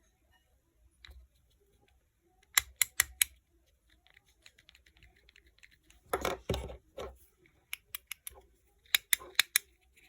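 Sharp plastic clicks and a short clatter from a Mercedes-Benz W124 power window switch being handled and pressed: four quick clicks about two and a half seconds in, a brief rattling burst around six seconds, and a run of single clicks near the end.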